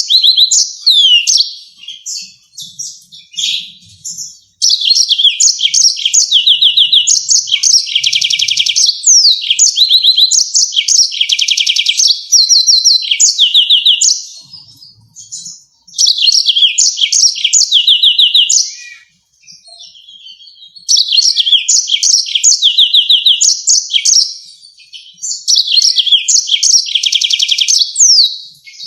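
Yellow-fronted canary singing: long phrases of fast, sharp repeated notes and rolling trills, broken by short pauses.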